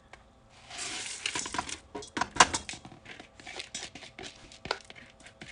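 Lentils pouring from a plastic colander into a stainless steel pot. A rattling rush about half a second in gives way to scattered sharp clicks as the last lentils drop onto the metal.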